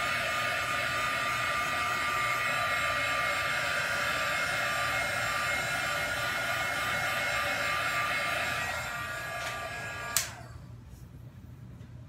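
Handheld hair dryer running steadily, a rush of air with a steady whine, used to blow wet acrylic pour paint across a canvas. It gets a little quieter shortly before it is switched off with a click about ten seconds in.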